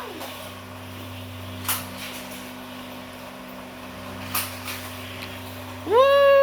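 Two short, sharp plastic clicks of a Hot Wheels car running on its track, over a steady low hum. Near the end a child's high voice begins a loud, long, falling shout.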